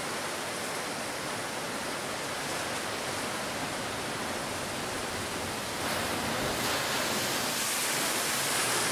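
Heavy ocean surf crashing and washing over rocks, a continuous roar of breaking water that grows a little louder about six seconds in.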